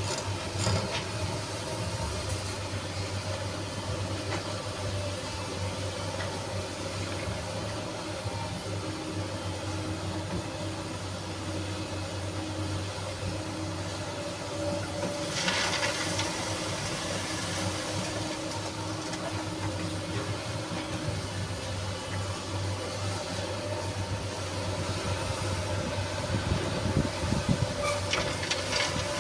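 SANY SY215C excavator's diesel engine running steadily under work, with a constant low hum and a whine. A rushing hiss lasts about a second and a half around the middle, and a few knocks come near the end.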